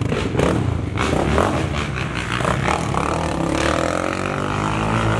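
A motor vehicle's engine running and being revved, its pitch gliding up and down in the second half, with a few clatters in the first second.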